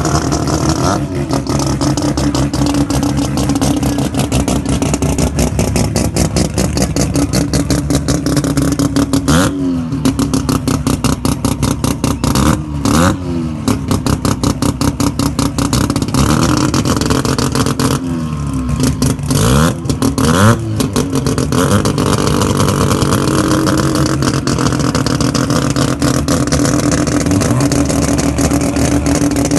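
A drag car's race engine running at a loud, choppy idle, with short throttle blips that rise and fall about nine and thirteen seconds in and a few more around eighteen to twenty seconds.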